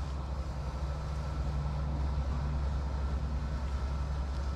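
Steady low machine hum with a faint higher tone held above it.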